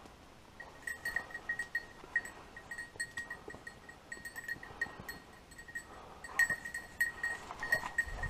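A setter's collar bell jingling in irregular bursts as the dog works through the undergrowth, thinning out for a moment past the middle and ringing more busily again near the end, with brush rustling underneath.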